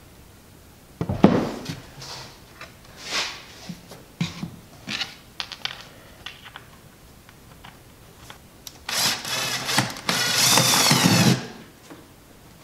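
Hands assembling a melamine-panelled cabinet box: a sharp wooden knock as a panel is set in place about a second in, then small handling clicks and knocks, and a longer raspy, buzzy noise near the end.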